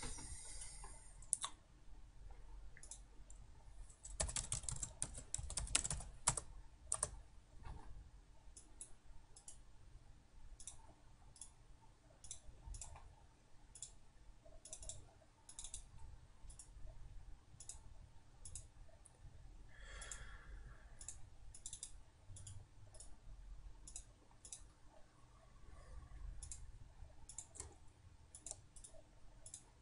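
Faint, scattered computer keyboard keystrokes and clicks, with a denser run of typing about four seconds in.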